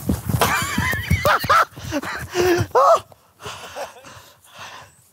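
A man's high-pitched, wavering wordless cries in the first couple of seconds, a shorter cry near the middle, then quieter rustling footsteps in long grass.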